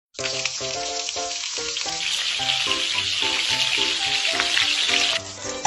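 Food sizzling in a hot frying pan, a steady hiss that cuts off suddenly about five seconds in, over background music with short repeating notes.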